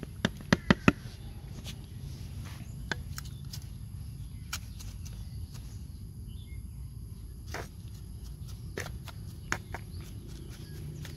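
Potting soil being scooped into a plastic pot and pressed around a chili seedling: scattered scrapes and taps of a small scoop and hands on soil and the pot, with a few sharp taps in the first second.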